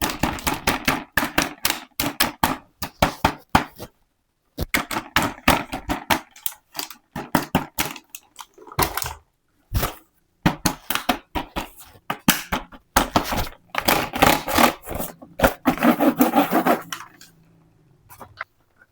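Plastic toy packaging being handled and opened, making fast runs of crinkling and clicking, broken by a few short pauses.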